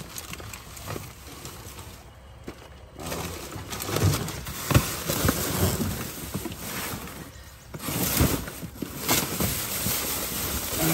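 Plastic trash bags crinkling and cardboard boxes scraping and knocking as gloved hands rummage through a dumpster, louder from about three seconds in.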